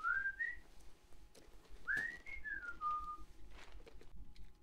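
A man whistling a slow tune, quietly: a phrase of notes stepping upward, a short pause, then a higher phrase that steps back down.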